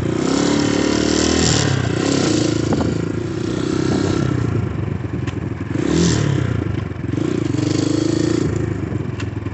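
2019 Xmotos 250cc single-cylinder dirt bike engine under way, revving up and easing off three or four times as it is ridden through the gears, with wind rushing over the microphone.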